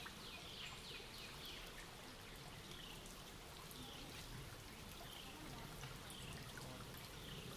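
Shallow creek trickling over rocks, a faint steady wash of water, with short high falling chirps repeating about once a second.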